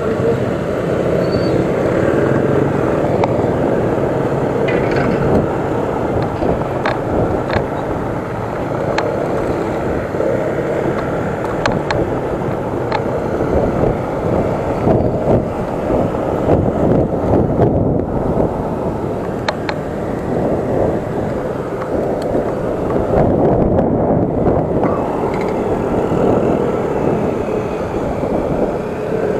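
Wind rushing and buffeting over an action camera's microphone on a moving electric scooter, a dense rumble that rises and falls, with road noise and passing car and motorcycle traffic.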